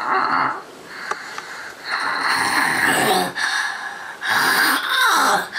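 A seven-year-old child snoring in sleep: three noisy, strained breaths about two seconds apart, as the child rouses to catch a breath. This is the snoring of severe obstructive sleep apnoea from grade-3 enlarged palatine tonsils.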